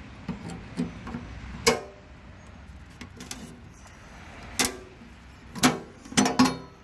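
A series of sharp metallic knocks and clanks, some with a short ring, from metal parts being handled while a sink is fitted. The loudest come near 2 seconds in, near 5 seconds, and in a quick cluster near the end.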